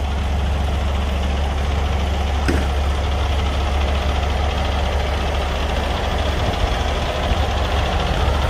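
Heavy diesel semi-truck engine idling steadily, a deep, even low rumble, with one faint click about two and a half seconds in.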